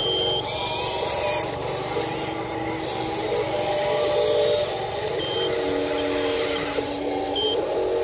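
Small electric motors of a Huina RC wheel loader whining at pitches that change in steps as it drives and lifts its bucket. About half a second in there is a burst of gravel scraping that lasts about a second.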